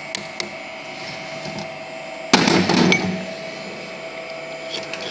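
Hand tools working at a steel roller chain's connecting link: a few small metal clicks, then one loud metal clatter lasting about half a second midway. A steady hum runs underneath.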